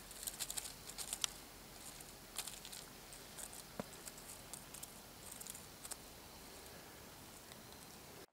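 Scattered small crisp crunches and ticks of a hooded crow pecking at and stepping on crusty, icy snow.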